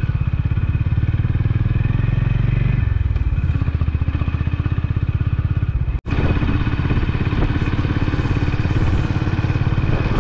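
Honda CB350RS single-cylinder engine running under way, its exhaust beat steady and even; the engine note drops about three seconds in, and the sound breaks off for an instant about six seconds in.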